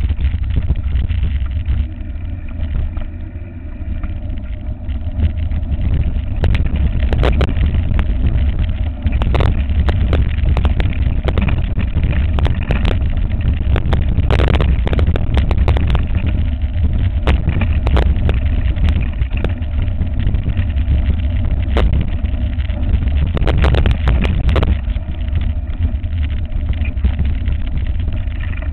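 Wind buffeting a handlebar-mounted camera's microphone as a mountain bike rolls fast down a stony dirt track, a constant low rumble. Over it the bike rattles and clatters over loose stones, with sharp knocks coming thick through the middle stretch and easing near the end on the smoother grass path.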